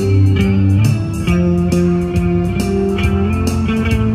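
Guitar music: held, plucked guitar notes changing every half second or so over a low bass part, with a steady beat.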